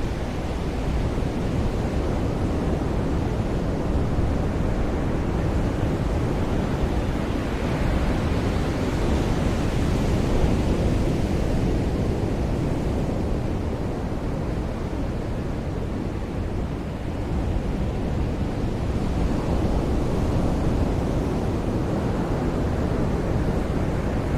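Ocean surf washing up a beach in a continuous wash that swells and eases as waves come in, loudest about ten seconds in.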